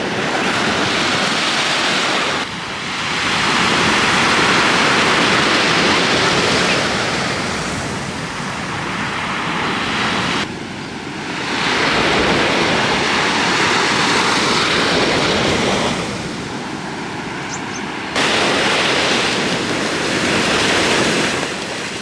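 Sea surf breaking and washing up a beach: a steady loud rushing that swells and fades, with sudden steps in level a few times.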